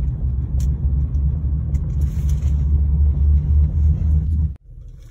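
Low, steady rumble of a car driving, heard from inside the cabin. It cuts off abruptly about four and a half seconds in, leaving a quieter low hum.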